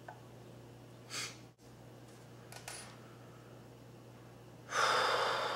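A person lets out a long, heavy sigh near the end, an exasperated exhale over a fiddly repair, after a shorter breath about a second in. A low steady hum runs underneath, with a couple of faint clicks of small parts being handled.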